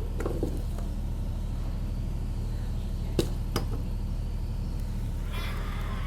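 Two sharp metallic knocks about half a second apart, from the alternator's casing parts being fitted together during reassembly, over a steady low hum. Near the end a cat meows.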